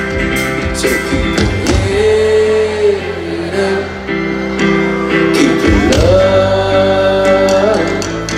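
Folk-rock band playing live through a large outdoor PA: strummed acoustic guitar, drums and violin, with two long held melody notes, the second higher than the first.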